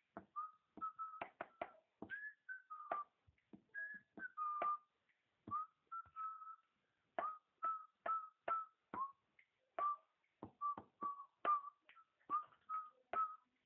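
A run of short whistled chirps, about two or three a second in an uneven rhythm, each starting with a sharp click and holding a brief high note that sometimes dips in pitch.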